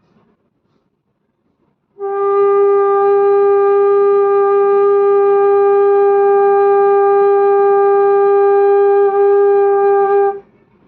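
Bamboo bansuri (Indian transverse flute) holding one long, steady note for about eight seconds, starting about two seconds in. It is blown at the sweet-spot embouchure angle, which gives a clear tone.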